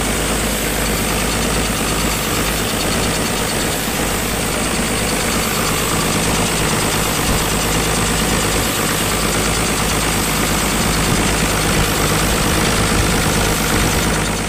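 Ashok Leyland 370 diesel engine idling steadily.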